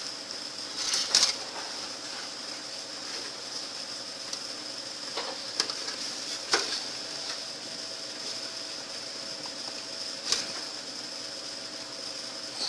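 A few sharp clicks and taps, five or so spaced seconds apart, as small electrical parts and wires are fitted into a small plastic speaker box. A steady background hiss with a faint high whine runs under them.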